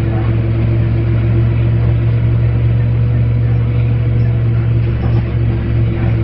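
Dennis Lance bus running, with a loud, steady low groaning drone holding one pitch over the rumble of the engine and drivetrain.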